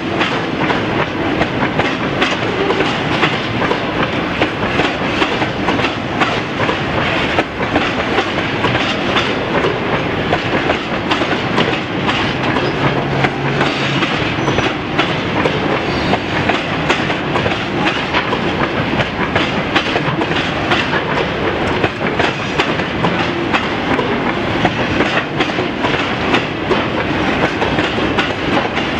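Railway flatcars loaded with track panels rolling past close by: a steady, loud rumble with the clatter of wheels over the rail joints.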